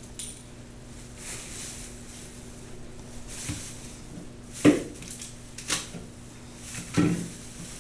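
A few sharp knocks and clatters in the second half, the first the loudest, over a steady low hum.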